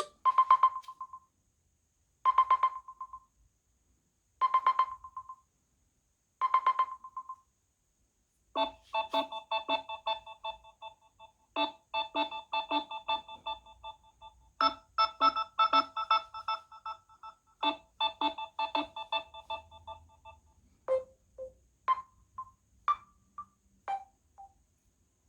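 Samsung Galaxy A71 ringtones playing one after another. First a short tone pulses about every two seconds; from about eight seconds in comes a busier ringtone of quick repeated melodic notes, and near the end a sparse run of single notes.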